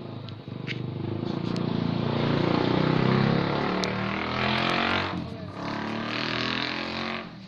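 An engine running, swelling to its loudest about three seconds in. Two bursts of hiss come over it, around the middle and near the end.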